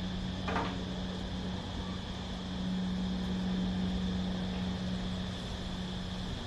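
A steady low motor drone, with cicadas buzzing continuously in a high band behind it.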